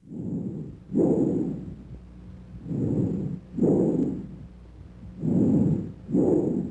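Bronchial breath sounds as heard on chest auscultation: about three slow breaths, each inhalation and exhalation separated by a short pause.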